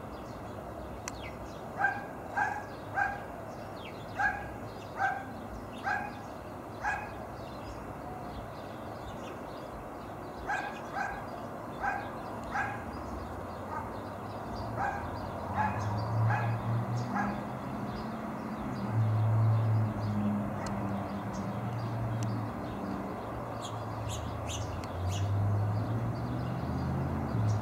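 A dog barking in two runs of short, evenly spaced barks, roughly one every half second to a second. A low steady rumble comes in during the second half.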